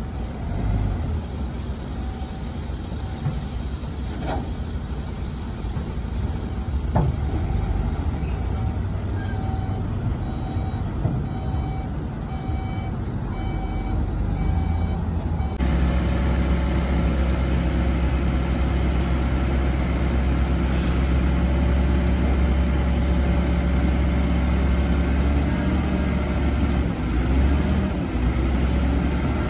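Heavy diesel dump truck engines running steadily while the trucks tip their beds. In the first half a truck's reversing alarm beeps repeatedly. About halfway through the engine hum becomes louder and steadier.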